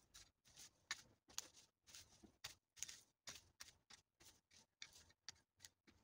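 Faint, repeated scratchy strokes of a long-handled garden tool raking through dry weeds and vines on the ground, about three a second.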